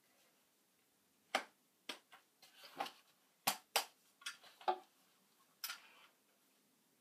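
Airsoft guns being handled and moved: a scattered string of about nine sharp clicks and clacks.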